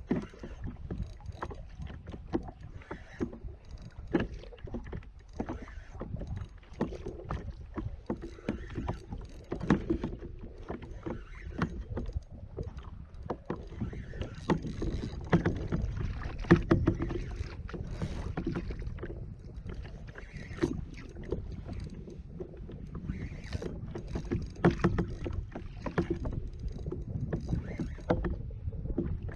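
Water lapping and knocking against a kayak's hull, with irregular small clicks and knocks throughout over a steady low rumble.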